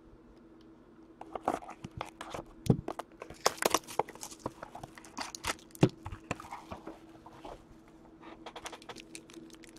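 A sealed trading-card hobby box and the plastic-wrapped card pack inside being opened by hand: crinkling and tearing of wrapping, with several sharper clicks and knocks.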